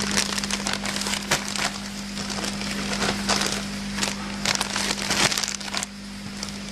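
Plastic film bags of cut cauliflower crinkling and crackling as they are set down on and lifted off a digital scale, over a steady low hum.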